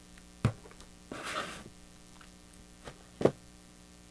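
Hands handling cardstock pieces and a glue bottle on a desk: two sharp light knocks of things being set down and a short scraping rustle between them, with a few faint ticks. A steady faint electrical hum runs underneath.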